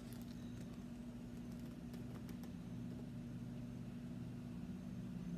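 Faint handling of an open hardcover picture book held up in the hands, a few light clicks and rustles in the first half or so, over a steady low hum.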